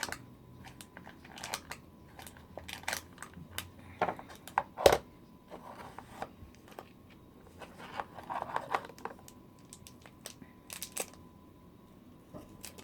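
Small toy packaging being handled, torn open and crinkled by hand, in scattered short rustles and clicks, with one sharp knock about five seconds in.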